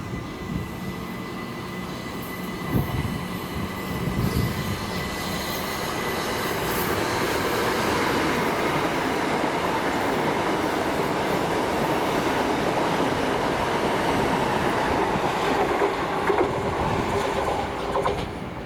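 A train running through the station, its wheels and track noise building over the first few seconds and holding steady. A thin high squeal sounds during the first several seconds. The noise stops suddenly near the end.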